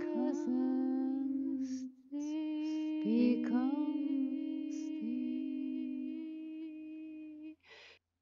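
A woman's voice singing slow, long-held notes in a chant-like line, with short breaths between phrases. The singing stops shortly before the end, followed by a brief breathy sound.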